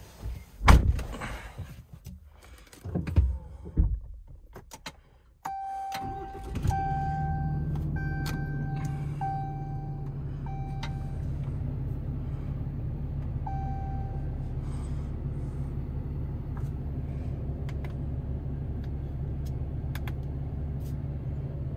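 A few knocks and thumps, then about five seconds in the pickup truck's engine starts and runs at a steady idle. Over it the dashboard warning chime beeps six times in quick succession, then once more a few seconds later.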